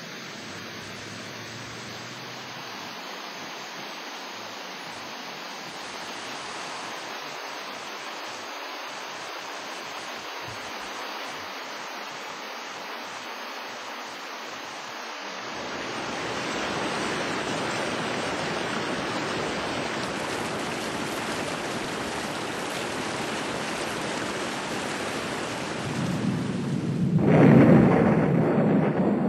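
Steady rushing of flowing water, growing louder and fuller about halfway through, with a loud low rumble coming in near the end.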